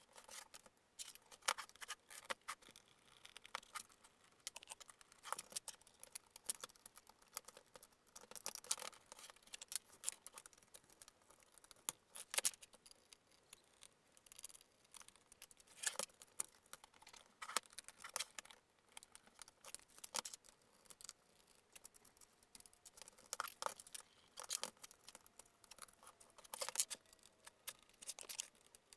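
Scattered, irregular clicks, taps and scrapes of a hard plastic laptop case being handled, turned over and worked on with a screwdriver during disassembly.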